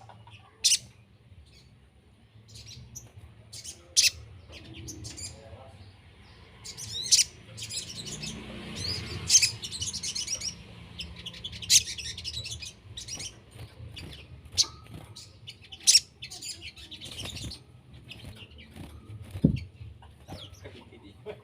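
Small songbirds calling: loud, sharp, high chirps every few seconds, with fainter rapid chattering in between, busiest in the middle.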